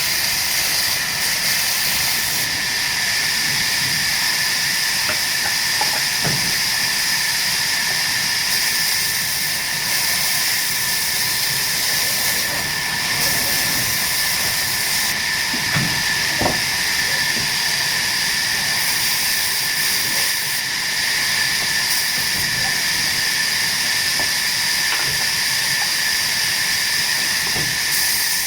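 Sawmill saw running and cutting through teak wood: a steady high-pitched whine over a loud hiss, with a few faint knocks.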